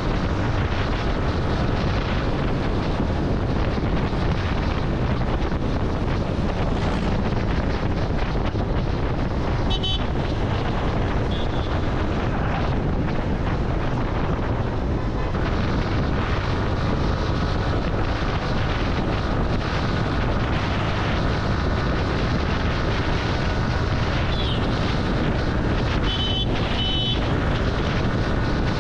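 Wind buffeting the microphone over the steady running of a Yamaha sport motorcycle's engine and tyres at highway speed. A few short high-pitched beeps sound about ten seconds in and twice close together near the end.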